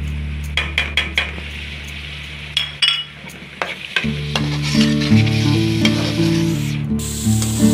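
Slotted metal spoon clinking and scraping against a metal pan as spices are stirred into hot oil, with the oil sizzling; a steady sizzling hiss grows near the end. Background music plays, dropping out briefly in the middle.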